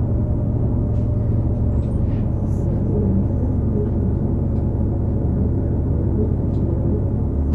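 Steady drone of a 2018 New Flyer XD40 city bus under way, heard from inside: the Cummins L9 diesel and Allison B3400xFE transmission giving a low hum with several steady tones layered above it. This tonal drone is the odd whine the uploader attributes to the transmission bearings, an issue shared by other buses of this series.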